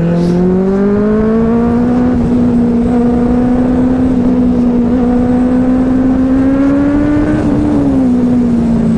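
Benelli 600i inline-four engine under way: the note climbs over the first two seconds as it accelerates, holds and creeps a little higher, then drops as the throttle eases off near the end.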